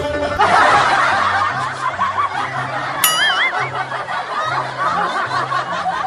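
Canned crowd laughter, many voices laughing at once, over background music with a steady low beat. About three seconds in, a short wobbling whistle-like comic sound effect.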